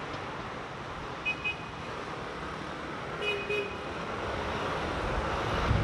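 Steady city street traffic noise along a busy boulevard, with two short high beeps, one about a second in and one about three seconds in. Wind buffets the microphone, growing near the end.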